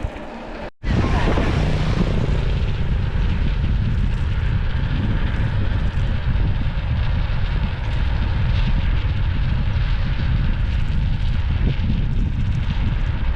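Wind buffeting a camera microphone during a bicycle ride: a loud, steady low rumble that comes in abruptly about a second in after a brief dropout.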